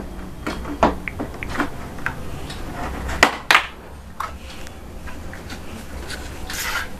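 Hard plastic cupboard parts knocking and clicking as a side connector is pressed down onto the panel edges, with scattered light knocks and two sharp snaps close together a little over three seconds in. A short rustle of handling near the end.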